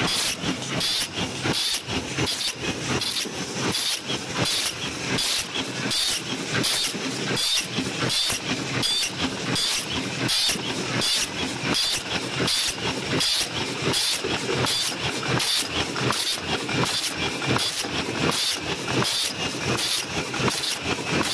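OCM12 paper cup making machine running, forming 12 oz cups: a steady mechanical clatter with an even rhythm of just under two strokes a second, each stroke carrying a short hiss.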